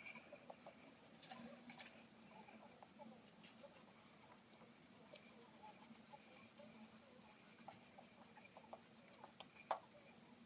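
Very faint, soft wet clicking and squishing of a shaving brush working soap lather, with scattered small ticks; a sharper tick comes near the end.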